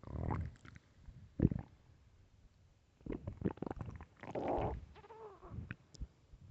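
An empty, hungry stomach growling loudly, recorded close up. A rumble comes at the start and another about a second and a half in. From about three seconds in there is a run of gurgles and a longer growl that wavers in pitch.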